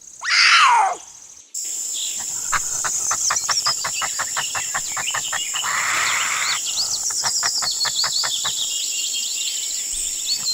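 A cougar's cry: one call about a second long, falling steeply in pitch. It is followed by an outdoor recording of a steady high trill of crickets or other insects, with runs of quick ticks and scattered bird chirps.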